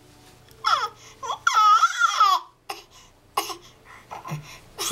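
Baby making high-pitched vocal noises, a few short squeals and babbles. The longest comes about a second and a half in and lasts nearly a second, with a wavering pitch.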